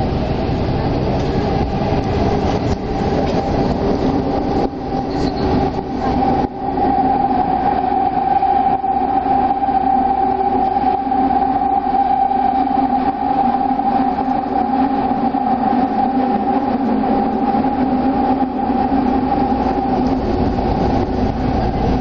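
Toei Oedo Line linear-motor subway train running through the tunnel, heard from inside the car: a loud, steady rumble with a constant high hum that grows stronger about six seconds in.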